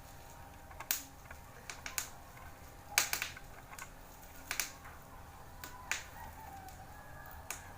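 Sharp clicks and snaps, about seven, irregularly spaced, while the ring light and its stand are handled and set up. The loudest comes about three seconds in.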